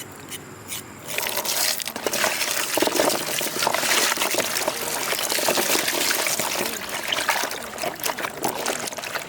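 Water pouring and splashing, starting about a second in and going on steadily.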